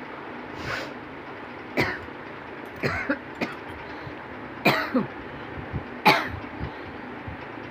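A person coughing hard in short separate bursts, about six or seven coughs, with the loudest ones in the second half. It is deliberate, repeated coughing, strained enough to bring on a feeling of nausea.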